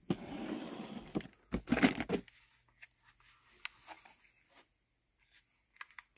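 A dresser drawer sliding open, then a short clatter and rustle as things inside it are moved, followed by a few faint clicks and taps as a pistol is lifted out and handled.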